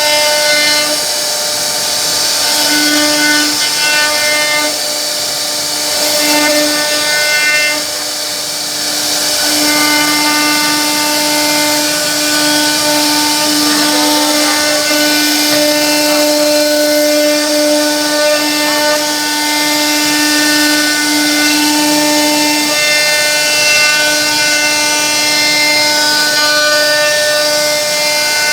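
CNC router spindle running with a steady high whine while its bit carves into a wooden board, over a constant hiss of cutting; the whine weakens and returns a few times in the first third.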